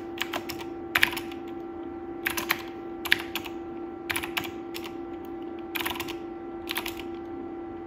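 Typing on the keyboard of a Dolch PAC 60 portable computer: short bursts of a few keystrokes, roughly one burst a second, as short shell commands are entered. A faint steady hum runs underneath.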